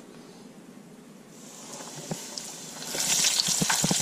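A battered soft-shell blue crab going into the hot oil of an electric deep fryer. The oil starts to sizzle about a second in and grows to a loud frying hiss near the end, with a few sharp clicks.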